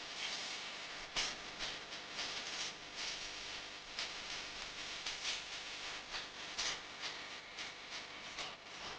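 A steady rushing hiss that swells and fades in short irregular gusts, with no music or voice.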